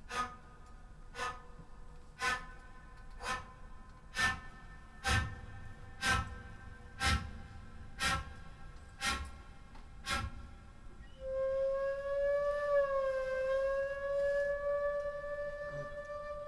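Glissando flute playing short, sharp pitched strikes about once a second, then a long held note from about eleven seconds in, with a small dip and slow slide in pitch before holding steady.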